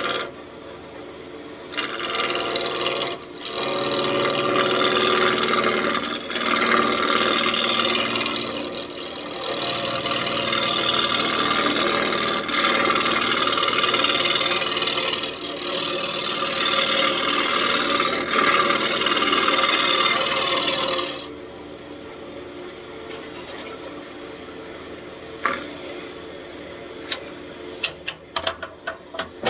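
Lathe gouge cutting a spinning walnut blank, roughing it round: a loud, rough scraping hiss with short breaks in the first few seconds. The cutting stops about two-thirds of the way through, leaving a quieter steady background with a few light clicks near the end.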